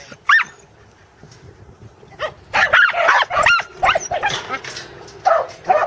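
Pembroke Welsh Corgi barking in high, sharp yips while herding sheep: one just after the start, a quick run of barks in the middle, and two more near the end.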